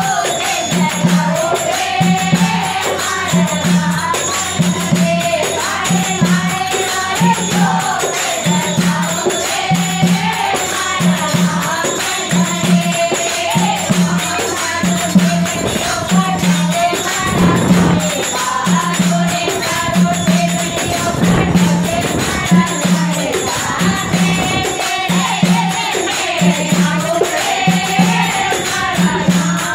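Group of women singing a Rajasthani Ramdevji devotional bhajan together, backed by a dholak hand drum beating a steady low pulse about once a second and jingling percussion.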